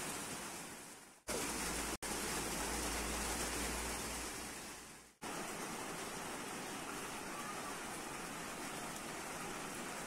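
Steady rain falling, an even hiss. It fades out and cuts back in about a second in and again about five seconds in, with a short break at two seconds and a low rumble under it between about one and four seconds in.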